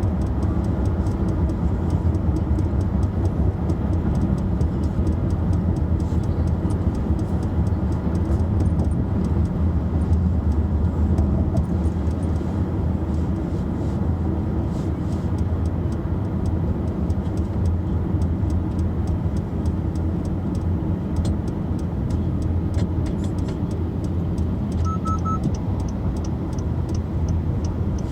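Car on the move: a steady low engine and road rumble with light, irregular rattling clicks over it. A short triple beep sounds near the end.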